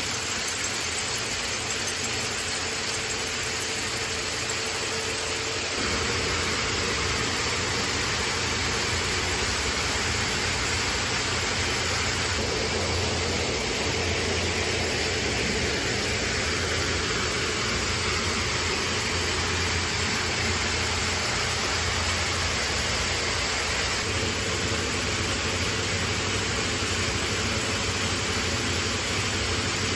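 Shoelace braiding machines running with steady mechanical noise, which grows louder and heavier about six seconds in.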